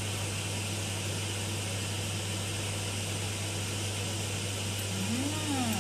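Steady low hum and hiss of background room noise. Near the end comes a short hummed "mmm" that rises then falls in pitch, as the soup is tasted.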